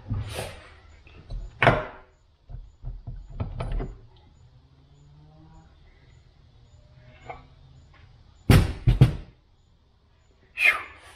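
Metal knocks and clanks as the housing of a 1960s Craftsman riding-mower gearbox is worked loose and lifted off its gear stack. There are single knocks in the first few seconds, a quick run of the loudest bangs about eight and a half seconds in, and a ringing metal clink near the end.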